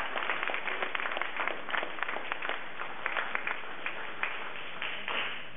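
Audience applauding, a dense patter of hand claps that thins out and dies away near the end.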